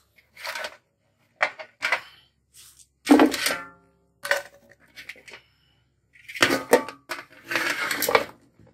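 Pieces of dried goat meat dropped by hand into a metal pot, making a string of separate knocks and clinks, some of them ringing. Near the end the metal tray is tipped and scraped over the pot's rim as the last pieces slide in.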